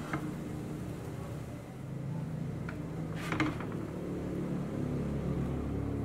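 French toast frying in butter in a nonstick pan, over a steady low hum. A spatula clicks and scrapes against the pan at the start and again about three seconds in as a slice is lifted and turned.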